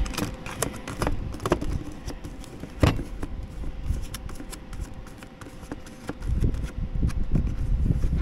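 Aluminium foil takeaway tray's crimped rim being bent back by hand to free its cardboard lid: crinkling foil and irregular sharp clicks, the loudest about three seconds in.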